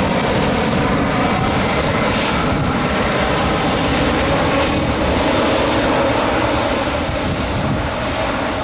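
Airbus A319's jet engines running loudly and steadily, easing off slightly near the end.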